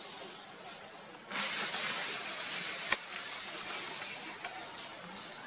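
Insects droning steadily at a high pitch. A short rush of noise comes about a second and a half in, and there is a single sharp click near the middle.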